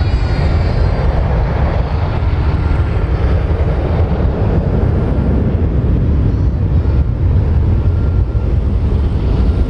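Boeing 737-800's CFM56-7B jet engines at climb power, a loud steady low rumble from the airliner climbing away after takeoff.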